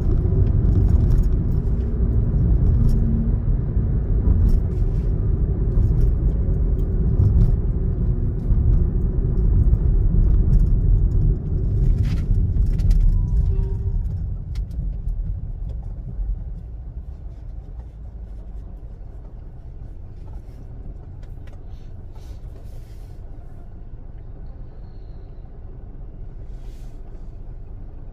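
Low road and engine rumble inside a Hyundai i20's cabin, loud for about the first fourteen seconds, then dying away as the car slows to a crawl and stops, leaving a quieter steady idle hum. A few faint clicks come through over it.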